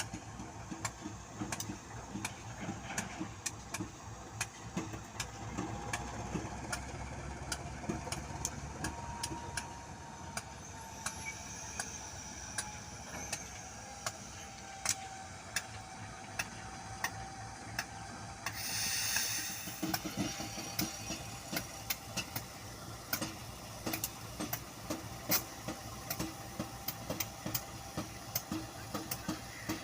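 Diesel train running, with a steady engine hum and many sharp clicks and knocks throughout. A short burst of hiss comes about two-thirds of the way through.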